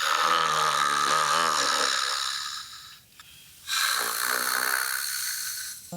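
A person snoring heavily: two long snores, each about two and a half seconds, with a short pause between them.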